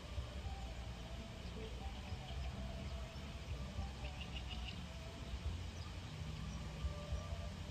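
Outdoor wind ambience: a steady low wind rumble on the microphone, with faint bird chirps over it. A quick run of short chirps comes about four seconds in.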